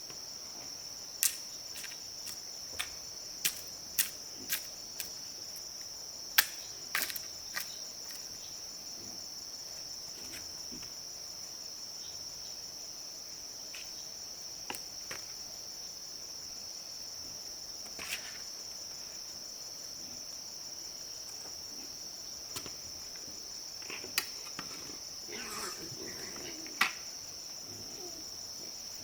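A steady high-pitched insect drone, like a chorus of crickets, broken by irregular sharp knocks and clicks. The knocks are bunched in the first several seconds and again near the end.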